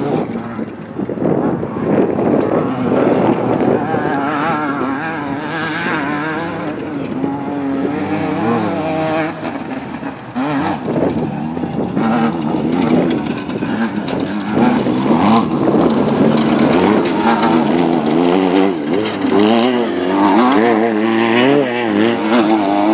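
Off-road race car engine running hard, its pitch rising and falling constantly with the throttle.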